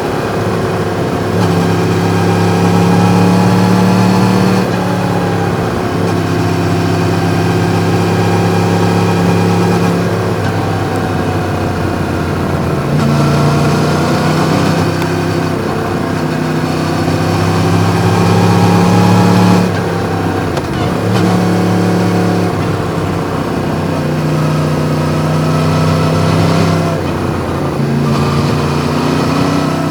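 Yamaha MT-10's crossplane inline-four with an Akrapovič exhaust running under way, its note stepping up and down several times as the engine speed changes.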